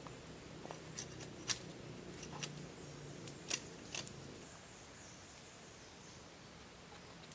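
Irregular sharp clicks and snaps, about eight in the first four seconds, then only faint background.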